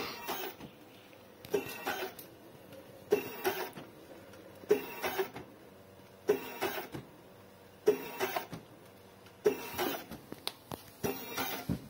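Thermal transfer overprinter running repeated print cycles: each starts with a sharp click and is followed by about half a second of mechanical noise, repeating evenly about every 1.6 seconds.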